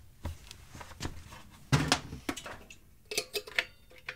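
A string of light metallic clinks and knocks from small motorcycle front-wheel parts being handled, the loudest near the middle.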